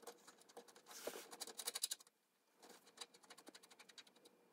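Faint scratching and light metal ticks of fingers turning a hydraulic valve fitting by hand, threading it back in. The ticks come in quick runs, with a short pause about two seconds in.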